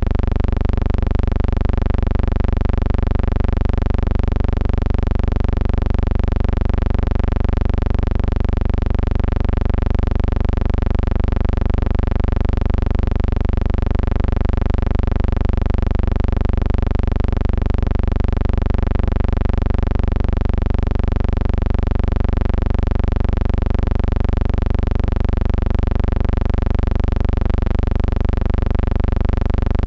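A loud, steady hum with many overtones, unchanging in pitch throughout, with a slight regular pulsing.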